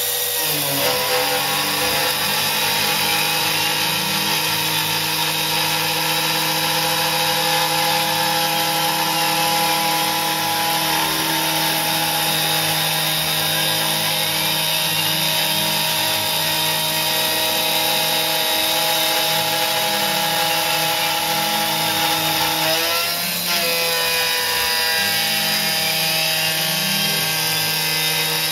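CNC gantry milling machine's spindle running while an end mill cuts a circular groove into an aluminium block: a steady whine over cutting noise, with faint tones gliding up and down as the cutter travels. About 23 seconds in the sound dips briefly and the tones shift before the cutting carries on.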